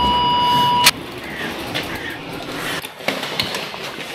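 A steady electronic beep tone that stops suddenly about a second in, followed by quieter background noise with a few faint clicks.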